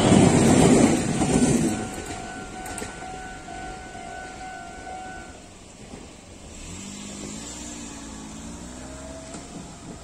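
A red Meitetsu train rumbling over a level crossing as its last cars pass, fading within about two seconds. The crossing's warning bell rings on steadily and stops about five seconds in, as the crossing clears. Near the end a car engine rises in pitch as it pulls away.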